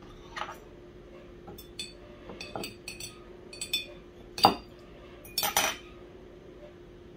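Metal kitchen utensil clinking against glass and dishes: a scattered series of light clinks, with a louder knock about four and a half seconds in and a short clatter about a second after it.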